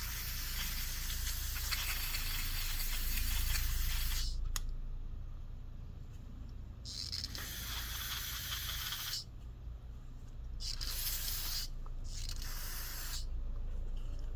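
Aerosol carburetor spray cleaner hissing in four bursts onto a dirty carburetor to wash off heavy dirt deposits. The first spray lasts about four seconds, the second about two and a half, and the last two are short and come close together near the end.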